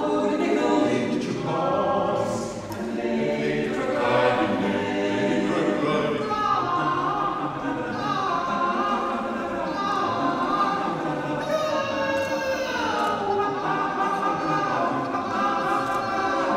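Barbershop quartet of four men singing close four-part harmony a cappella. In the middle stretch some voices are sung through cupped hands in imitation of horns. About two-thirds of the way through, the voices slide downward together.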